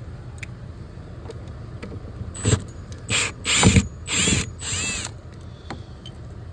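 Cordless power driver backing a mounting screw out of a frost-free hose bib's flange in five short trigger pulls, its motor spinning up and winding down with each one.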